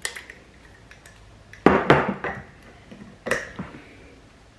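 A metal spoon clinking against ceramic ramekins: a sharp clink at the start, a cluster of knocks and clinks about two seconds in, and one more just past three seconds.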